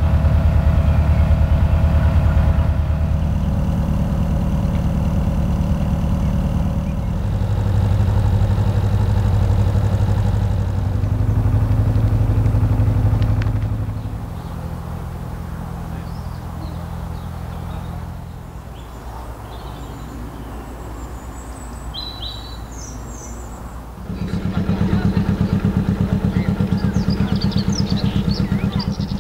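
Narrowboat diesel engines running with a slow, even beat, the tone shifting several times and dropping quieter for a stretch in the middle. Birds chirp briefly about three-quarters of the way through.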